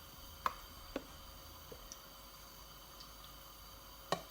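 A few faint clicks and light taps from kitchenware being handled, over a quiet room, as olive oil is measured out for the pan.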